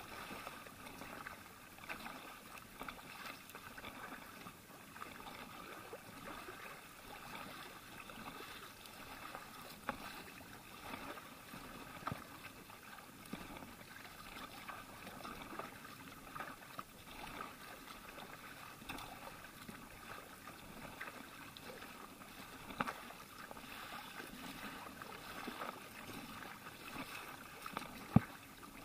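Kayak paddle strokes dipping and splashing in choppy sea water, with water rushing along the hull of a drop-stitch inflatable kayak. A few sharp knocks are heard, the loudest near the end.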